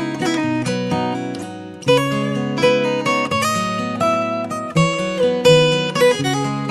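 Stock Xiaomi MIUI ringtone: a plucked guitar melody over strummed chords, with a fresh chord struck about every three seconds.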